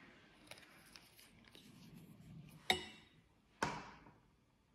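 Paint tubes being handled and set down on a hard surface: light ticks and rustling, then two sharp knocks about a second apart, the second ringing briefly.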